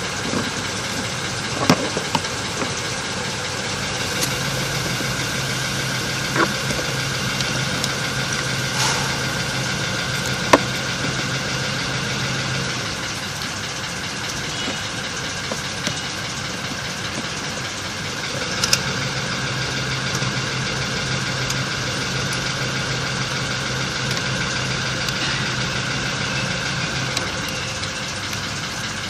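A steady engine-like running hum, with a low drone that comes in and cuts out twice and a few sharp clicks or taps.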